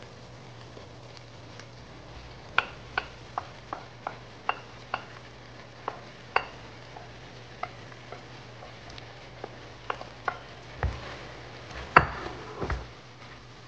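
A spoon clicking and tapping against the rim of a pan as vegetables are added to a simmering chicken filling, a quick run of sharp clicks that thins out. Near the end come a few heavier knocks and stirring, the loudest part.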